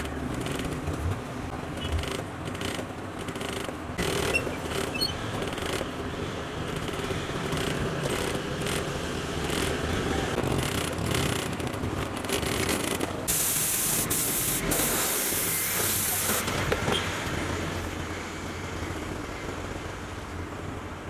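A hiss of compressed air lasting about three seconds, starting a little past the middle, over a steady background rumble of workshop and traffic noise.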